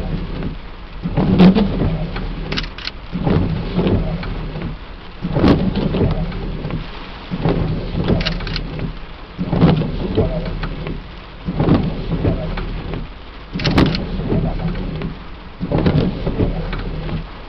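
Thunderstorm: steady rain with rumbles of thunder, broken by irregular sharp thumps every second or two.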